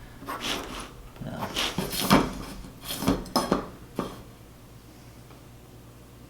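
Drafting tools clicking and knocking on a drawing board: a string of sharp taps over the first four seconds that then stops.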